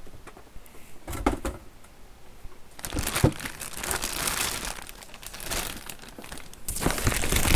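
A clear plastic bag crinkling as hands handle the boxed electronic unit inside it. A few light knocks come first, then steady crinkling from about three seconds in, which stops abruptly and then returns near the end.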